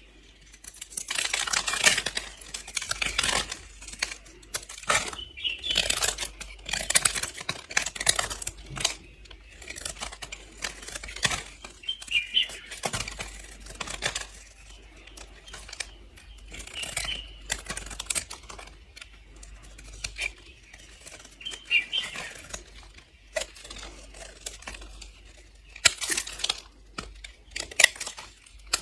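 Blade slicing through bars of soap: crisp, crunchy crackling in repeated strokes, each lasting a second or two with short pauses between.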